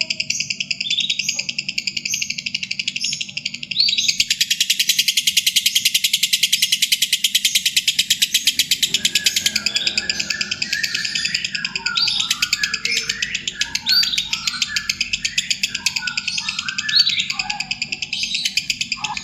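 Birds chirping and twittering over a continuous fast, high-pitched trill, with a low steady hum beneath; the chirping grows busier about halfway through.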